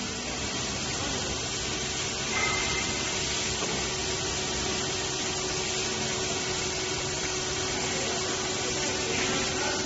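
Steady machinery noise from a large injection molding machine and its robot: an even hiss, with a steady hum that comes in about two and a half seconds in.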